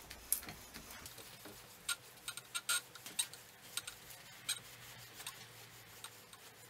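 Layback seatpost being worked out of a 1984 Raleigh Super Burner's rusty seat tube: faint, irregular clicks and scrapes of metal on metal as the post slides free.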